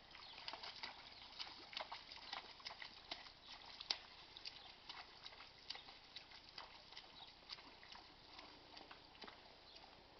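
Faint, irregular splashing steps of a Welsh Cob pony's hooves wading through a shallow stream, with light patters of water.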